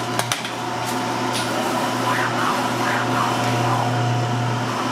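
Steady low hum of deli kitchen equipment, with a few sharp clicks near the start.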